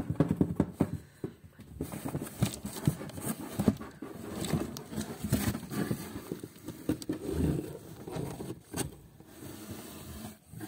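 Cardboard scraping, rustling and irregular tapping as a cat climbs through holes between cardboard boxes, with the phone brushing against the cardboard.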